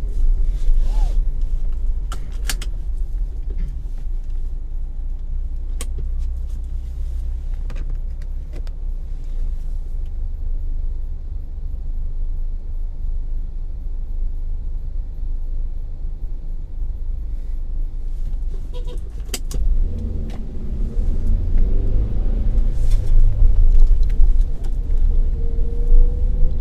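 Car driving, with a steady low rumble of engine and road noise and a few sharp clicks. It gets louder and rougher about twenty seconds in.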